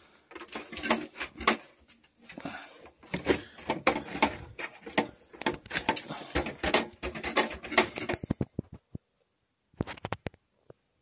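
A desktop computer case being handled: a dense run of irregular knocks, clicks and scrapes for about eight seconds, then a few single clicks near the end.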